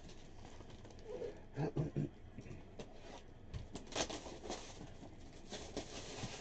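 Crinkling and crackling of plastic shrink-wrap being handled and pulled off a cardboard box of trading cards, with light taps and scrapes, busier in the second half.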